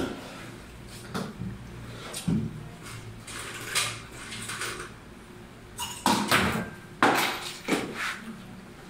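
Scattered knocks and clatter of cups, containers and utensils being handled on a coffee bar counter while an iced drink is put together, loudest and busiest from about six to eight seconds in.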